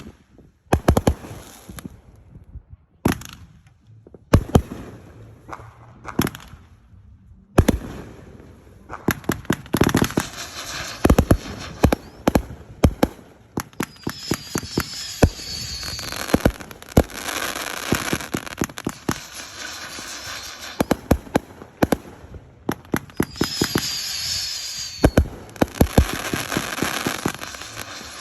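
Fireworks going off: a few separate sharp bangs, then a dense barrage of rapid bangs and crackling from about eight seconds in. A high, slightly falling whistling hiss rises out of the barrage twice.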